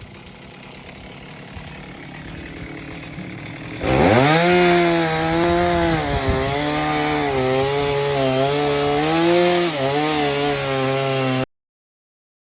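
Chainsaw on an Alaska chainsaw mill ripping a log into boards: quiet at first, then about four seconds in it jumps to full throttle and holds a steady high pitch, sagging slightly now and then under load. It cuts off suddenly near the end.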